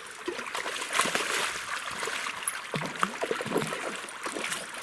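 A hooked fish splashing and thrashing at the surface of shallow river water as it is played on a spinning rod, loudest about a second in and again around three seconds in, over the sound of the flowing river.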